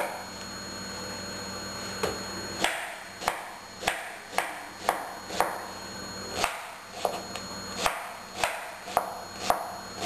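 Sharp knife finely chopping an onion: the blade strikes about twice a second, starting about two and a half seconds in.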